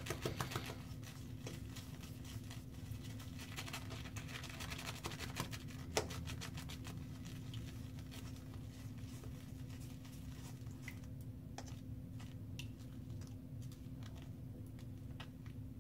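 Synthetic-knot shaving brush swirled on a soft shaving soap to load it: a faint scratchy patter of small clicks, with one sharper click about six seconds in.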